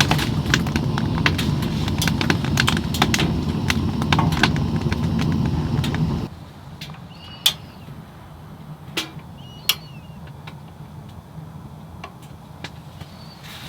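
Wood fire crackling in a wood-burning stove, many sharp pops over a steady low rumble. About six seconds in it cuts off abruptly to a much quieter background with a few short high chirps.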